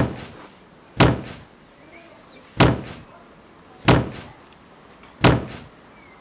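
Heavy, stomping dinosaur footsteps, the giant-footfall effect of a T-Rex walking: five booming thuds about one every second and a quarter, each dying away briefly.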